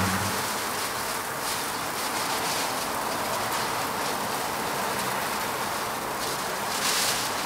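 Food frying on a hot griddle at a street toast stall, a steady sizzling hiss with a short louder burst near the end.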